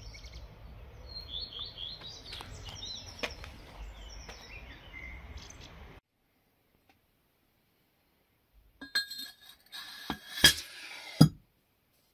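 Small birds chirping repeatedly over a low rumble. After an abrupt cut to silence, a short cluster of sharp clinks and knocks follows near the end.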